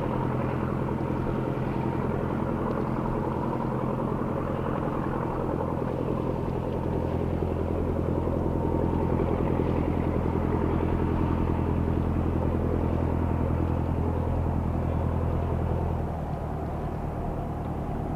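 Jet engines of an Airbus A330-203 (GE CF6-80E1 turbofans) running with a steady low rumble and hum. It grows louder through the middle and drops suddenly about sixteen seconds in.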